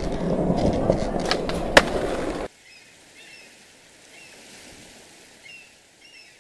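Skateboard rolling: a steady rumble with clicks and one sharp clack just before two seconds in, cutting off suddenly about two and a half seconds in. After it comes a faint hiss with a few short high chirps.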